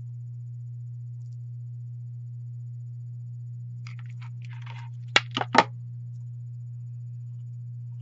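Three sharp knocks in quick succession as a hot glue gun is set down on a wooden tabletop, after a brief rustle of handling. A steady low hum lies under it.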